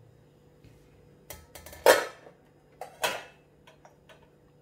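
Metal kitchenware being handled: a few light clicks, then two loud clanks about a second apart, each with a short ring.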